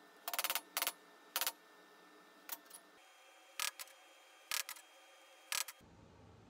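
Steel rods and their capped ends knocked and set down on a steel welding table: a series of sharp metallic clinks, about ten in all, coming in small groups of one to three.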